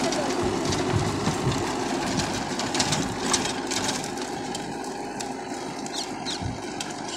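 Mahindra 415 tractor's diesel engine running under load while the rear rotavator churns through the soil, with scattered clicks and knocks. The sound gradually grows fainter as the tractor pulls away.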